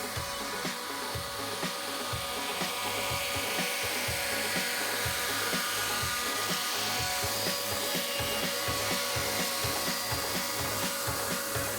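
Background music with a steady beat, over an electric chainsaw running and cutting through wood.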